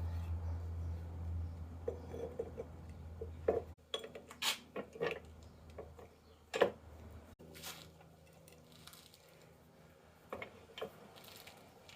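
Scattered sharp metal clinks and knocks from handling a rusty axe head on an arbor press, the loudest about six and a half seconds in. A low steady hum stops a little under four seconds in.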